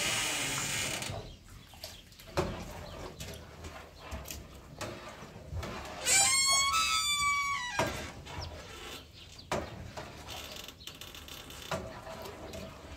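A metal ladle stirring and knocking against a large aluminium cooking pot, with scattered clinks. About six seconds in, a rooster crows once for roughly two seconds, the loudest sound here.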